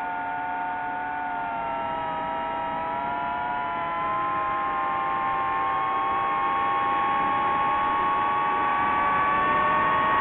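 DJI FPV quadcopter's motors and propellers whining steadily, several close pitches drifting against each other and slowly rising as the drone flies, growing a little louder.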